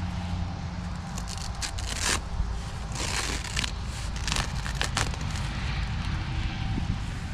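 Fabric grow bag of soil being handled and dumped: irregular rustling, scraping and crackling of the worn, tearing fabric and the soil, strongest in bursts about two and three seconds in.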